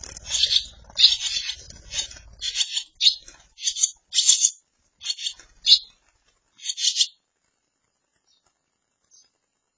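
Well-grown barn swallow chicks, near fledging, giving scratchy begging calls in short bursts, about one or two a second, as a parent comes to the nest to feed them; the calls stop about seven seconds in. A low rumble of wing flutter at the nest rim lies under the first couple of seconds.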